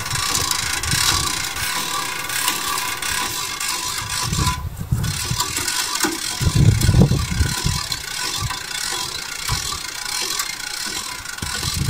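Hand winch being ratcheted to pull a car on a rope, giving continuous rattling and clicking with irregular knocks, louder for a stretch about six and a half seconds in.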